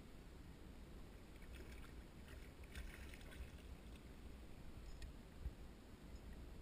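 Faint, muffled water sounds around a fishing kayak, with a brief patch of light splashing about two to three seconds in as a hooked catfish thrashes at the surface beside the boat.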